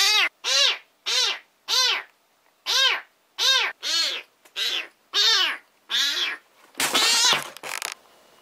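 A cat meowing over and over in short calls, each rising then falling in pitch, about a dozen of them at roughly one every half second. The last two near the end are longer and harsher.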